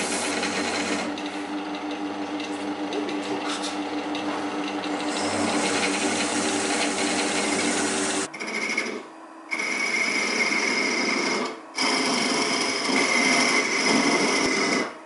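Workshop power tools working wood. A machine runs steadily with a low hum for about eight seconds, then the sound changes abruptly to a wood lathe turning a small wooden pipe part under a hand-held cutting tool. The lathe has a steady high whine and breaks off briefly twice.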